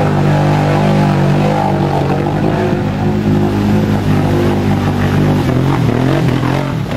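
Quad bike (ATV) engine running hard at steady high revs while driving through mud. About five and a half seconds in, the revs start rising and falling.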